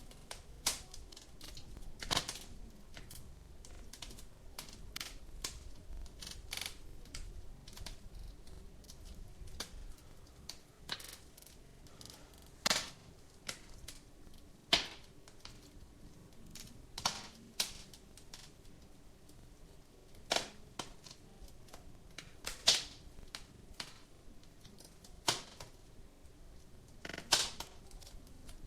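Wood fire in a fireplace crackling, with sharp pops at irregular intervals, some much louder than others, over a faint low rumble.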